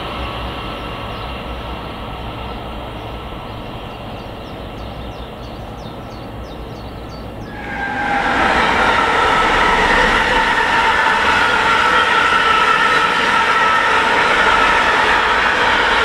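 An electric train running in the distance, then, about 8 seconds in, a sudden switch to a container freight train passing close: loud steady rolling noise of wagons on the rails, with several steady high-pitched tones running through it.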